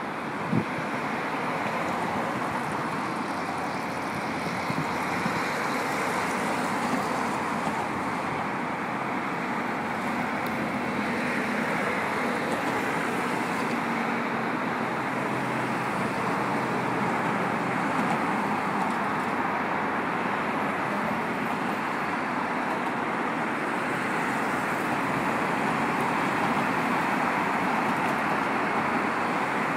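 Steady road traffic noise of cars driving past on a busy road.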